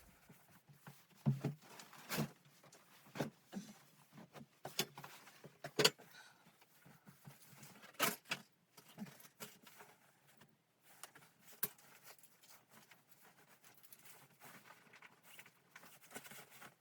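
Irregular clicks and light knocks, with faint rustling between them and a few sharper knocks in the first half.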